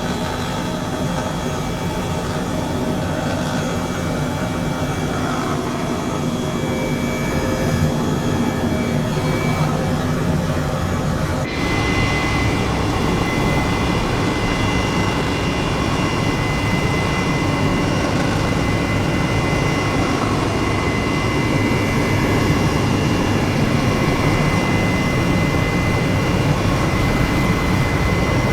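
Loud, steady engine drone with several high whining tones over a rushing noise. It shifts abruptly about eleven seconds in, and a brighter whine comes in.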